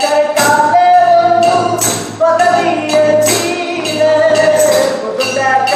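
Informal group singing of a song with a handheld plastic tambourine jingling in a steady rhythm.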